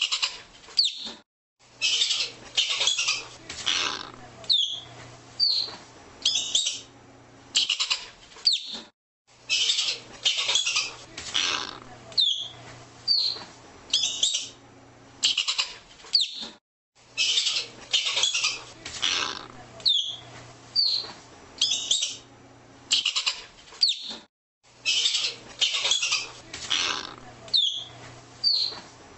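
Arctic ground squirrel calling: a dense run of high-pitched chirps followed by several single short chirps, each sliding down. The same sequence repeats about every seven and a half seconds.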